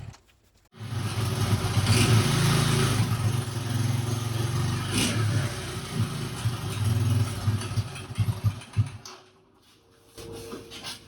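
1982 Honda ATC200E Big Red's single-cylinder four-stroke engine running unevenly, its level rising and falling, then stopping about nine seconds in. It will only idle very high or stall, which the owner puts down to something gummed up in the carburetor.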